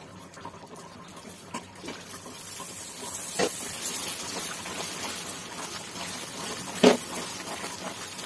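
Thick sugar syrup sizzling and bubbling in a metal pan as whole amla are stirred through it with a wooden spatula, the hiss growing louder after a couple of seconds. The spatula knocks against the pan twice, the louder knock about seven seconds in.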